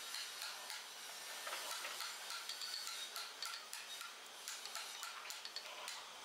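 Wooden mallet tapping a carving gouge through wood, the gouge cutting chips: a quick run of light, irregular taps with a scraping rustle under them.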